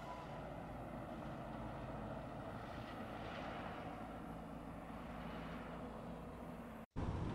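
Steady rushing road and wind noise of a car driving, over a low engine hum. Near the end it cuts out abruptly for a split second, then comes back louder.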